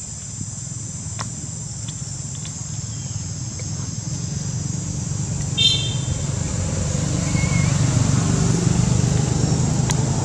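A low, steady motor-vehicle engine hum grows gradually louder over several seconds. Beneath it runs a steady high drone of insects, and a brief high squeak comes about halfway through.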